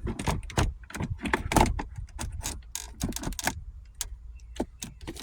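Irregular clicks, taps and rattles of the shifter trim pieces being handled and fitted into place in a Dodge Charger's console. They thin out after about four seconds.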